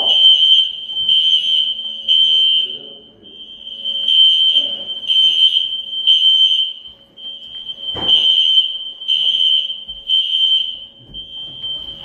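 Hotel fire alarm sounding: a loud, high-pitched tone beeping in repeating groups of three with a short pause between groups, the temporal-three evacuation signal. A single thump about eight seconds in.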